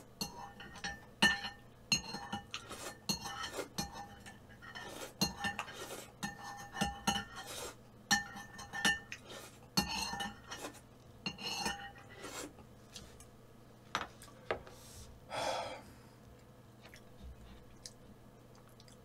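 A spoon clinking and scraping against a bowl while eating, each tap leaving a short ring; the taps come thick and fast at first, then thin out in the last few seconds.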